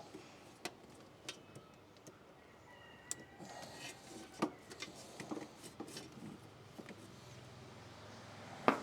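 Hands and tools working on diesel filter parts in an engine bay: scattered light clicks and taps, with a sharper click near the end.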